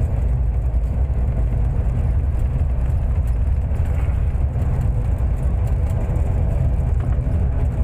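Cabin noise of an ATR 72 twin-turboprop airliner rolling along the runway after landing: a loud, steady low rumble of the engines and propellers with rushing airframe noise.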